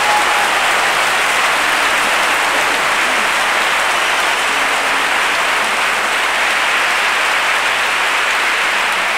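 A large audience applauding, steady and loud.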